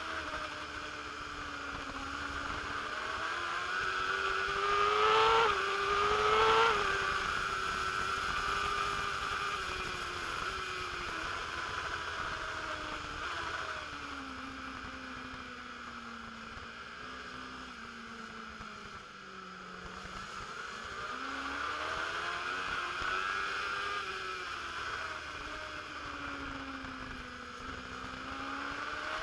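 Onboard sound of a racing motorcycle's engine at full race pace, its pitch climbing and falling as the rider accelerates and slows, with a sharp run of rising revs about five to seven seconds in. Wind rushes over the microphone.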